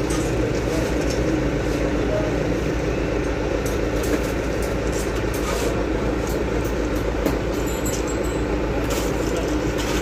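Asphalt paver running with a steady engine drone that stays even throughout, with a few light clicks on top.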